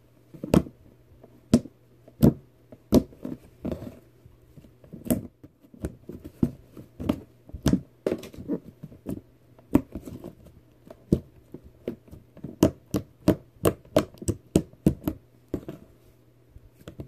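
Soft serve slime being pressed, squished and stretched by hand, giving irregular sharp clicks and pops that come thicker in the second half. A fan hums steadily underneath.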